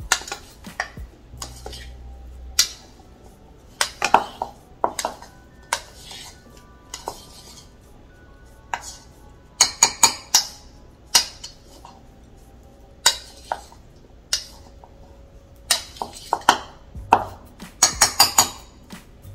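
A spoon clinking and scraping against a mixing bowl while blueberries are tossed with flour and lemon juice, in irregular clusters of sharp clinks, thicker in the second half.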